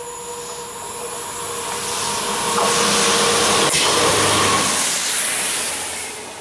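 Yellow self-propelled rail track maintenance machine passing at speed: a rush of engine and wheel noise that builds to a peak as it goes by, with a single sharp clack in the middle, then fades quickly near the end.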